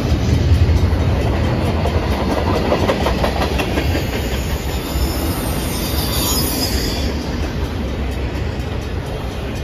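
Double-stack intermodal cars of a freight train rolling past: a steady heavy rumble with wheel clatter over the rail joints. A high wheel squeal rises over it just past the middle.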